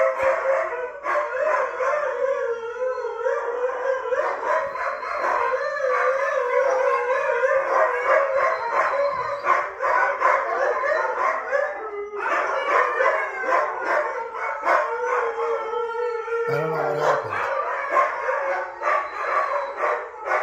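Several huskies howling together: a loud, continuous chorus of overlapping, wavering howls, with a brief break about twelve seconds in.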